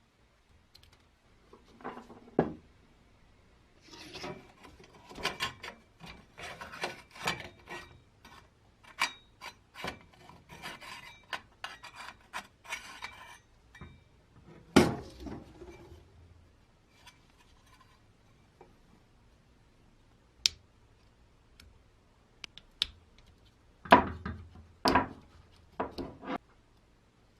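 Hand work on old fan parts: bursts of rubbing and scraping strokes, with a loud knock midway and several more knocks near the end.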